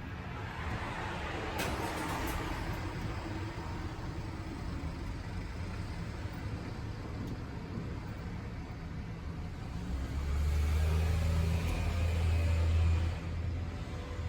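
Car engine idling with a steady low hum. About two-thirds of the way through, the hum grows louder for roughly three seconds, then drops back suddenly.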